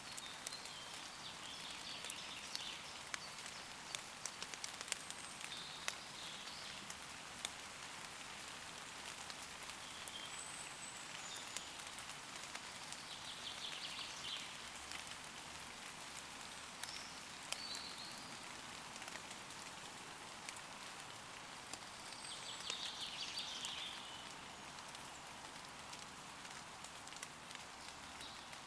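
Steady light rain falling on leaves, with many individual drops ticking sharply. A few times, short chirping calls and trills from woodland birds come through the rain, the longest about 22 to 24 seconds in.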